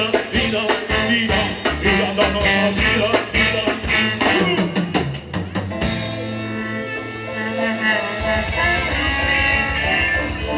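Live band playing an instrumental passage on drum kit, electric bass and keyboard. A quick drum fill comes about five seconds in, after which held chords ring and a steady bass line pulses near the end.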